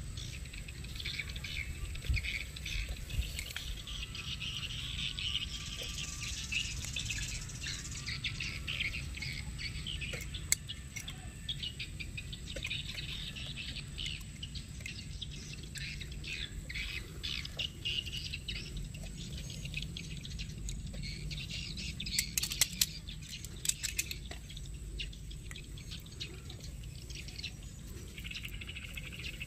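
Squid sizzling and crackling on a wire grill over a charcoal fire, with a few sharp clicks of metal tongs against the grill wire a little past the middle.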